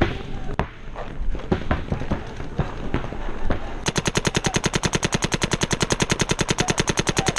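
Paintball markers firing: scattered single shots, then about four seconds in a marker opens up in a fast, even stream of about a dozen shots a second.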